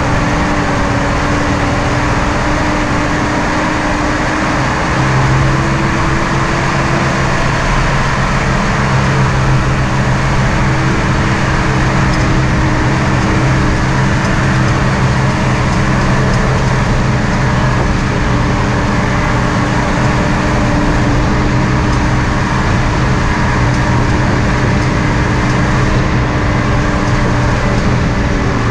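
Jeep CJ5 engine running steadily under load as the Jeep climbs a rough dirt trail, its pitch stepping up about five seconds in and then holding, over a steady rush of noise.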